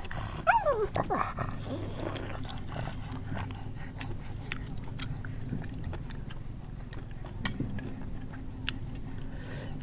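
A dog whining once, a short high whine that falls in pitch about half a second in, then scattered light clicks and chewing sounds from eating.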